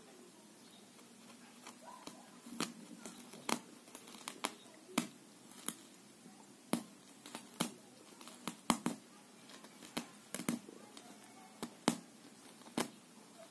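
Thin plastic bag crinkling and crackling as a cat paws and noses at it: irregular sharp crackles, about twenty of them, beginning about two seconds in.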